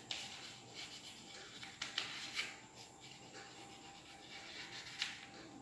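Chalk writing on a blackboard: faint scratchy strokes in short bursts, the clearest about two seconds in and again near the end.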